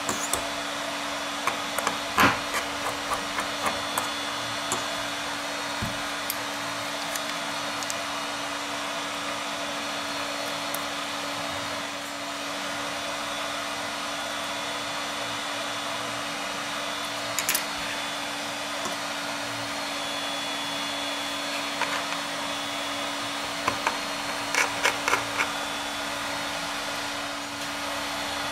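Small sharp clicks and taps of a precision screwdriver and tweezers on the screws and aluminium of an iPhone 6 housing, a few near the start, one in the middle and a cluster near the end. Under them runs a steady whooshing background noise with a low hum.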